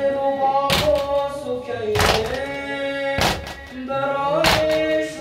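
Men beating their chests in unison (matam) to a sung Persian noha: four heavy strikes, evenly about a second and a quarter apart, under the reciter's long, held sung notes.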